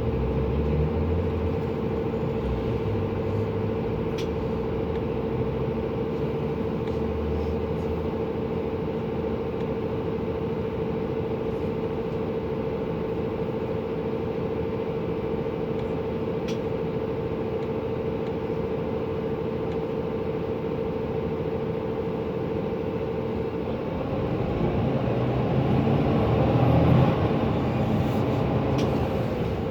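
Mercedes-Benz Conecto NGT city bus's OM 936 G natural-gas engine running, with its cooling fan making a loud, steady whine. About three-quarters of the way through, the whine stops and the engine gets louder, its note rising.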